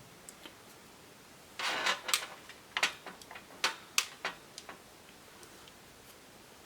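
A quick run of sharp clicks and light knocks, about a dozen, from about a second and a half in until nearly five seconds: small parts of a laptop's screen assembly and hinge being handled and set down during disassembly.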